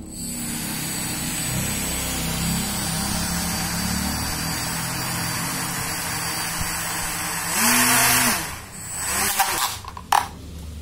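Small brushless RC motor, driven by a Hobbywing Skywalker 40A ESC through a brushed-to-brushless converter on a bench test, starts abruptly and spins with a steady whir and a thin high whine. Near the end the throttle is blipped: one louder surge that rises and falls in pitch, then two short bursts.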